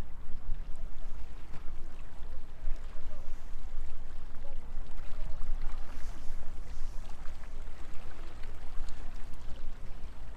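Sea waves washing and splashing against a stone seawall, with wind rumbling on the microphone.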